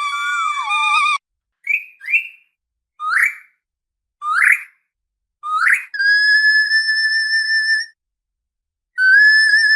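Orca whistles and calls: a held whistle that stops about a second in, then five short upward-sweeping calls spaced about a second apart, a steady two-second whistle about six seconds in, and another long whistle starting near the end, with silent gaps between them.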